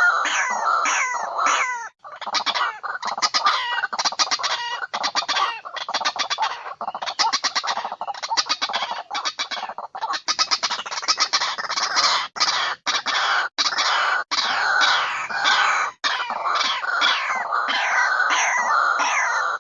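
Birds calling in a dense, fast chatter of short repeated notes, broken by a few sudden short gaps.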